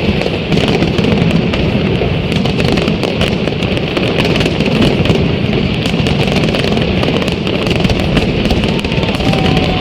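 Fireworks display: dense, continuous crackling and bangs, loud throughout.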